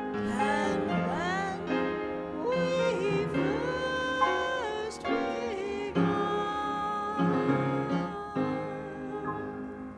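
Live music from a small jazz ensemble: a melody with sliding notes over sustained chords, the sound dying away near the end.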